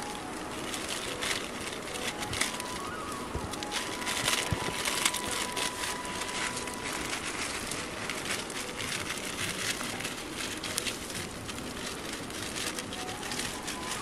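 A small wood cooking fire crackling, with dense irregular snaps and ticks over a light hiss, mixed with the crinkle of a plastic noodle packet being handled.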